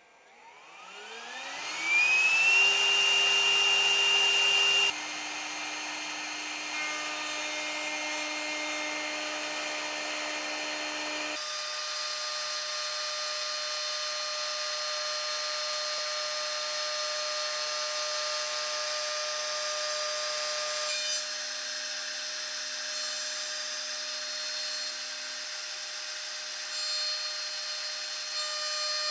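Milling-machine spindle motor spinning up with a whine that rises over about two seconds and then holds steady, loudest once it is up to speed. The straight router bit then runs and cuts into a wooden block. The steady machine sound changes abruptly a few times.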